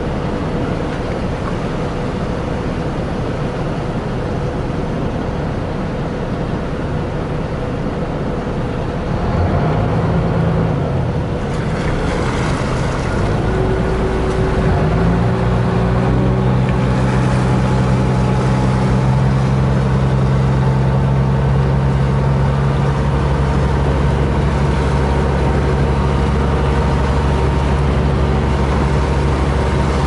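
Car ferry's engine running under way over water wash. The engine note rises about ten seconds in and climbs again around fifteen seconds in, then holds as a louder, steady drone.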